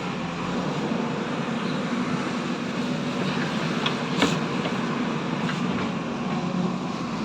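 Steady low mechanical rumble, with a single sharp click about four seconds in.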